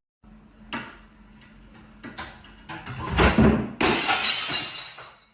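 A few knocks, then a loud crash about three seconds in, followed by a shattering sound like breaking glass that fades out.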